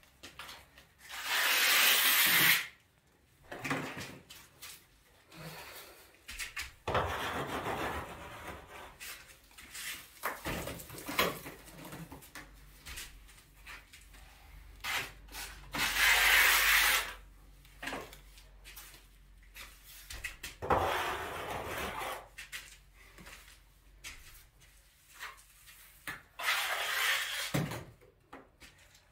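Plastering with a compressed-air hopper bucket: several hissing blasts, each a second or two long, as mortar is sprayed onto the wall. Between them come fainter rubbing and scraping sounds of wet plaster being worked.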